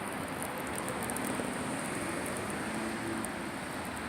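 Steady outdoor street noise with a low hum of traffic.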